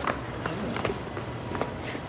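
Quick footsteps on concrete stairs, someone hurrying down them, about three sharp steps a second over a steady low rumble.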